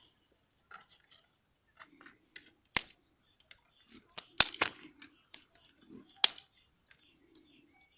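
Dry grass and kindling crackling as a wood bonfire catches: irregular sharp snaps and pops, the loudest about three seconds in, a close pair near the middle and another a little after six seconds.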